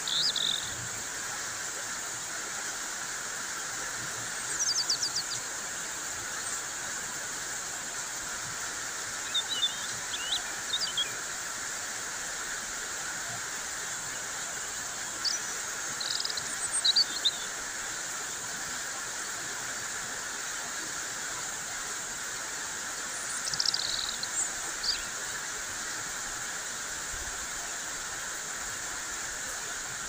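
Heavy rain falling steadily, with birds giving short high chirps and calls in scattered bursts every few seconds.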